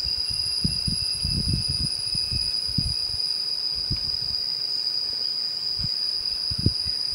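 Steady high-pitched drone of insects, with a fainter whine sliding slowly lower, over irregular low thuds.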